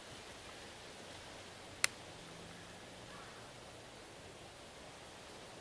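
Quiet woodland ambience with one sharp click about two seconds in.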